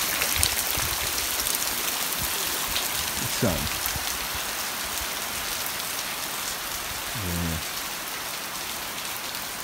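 Steady rain falling on muddy ground and puddles, an even hiss of drops.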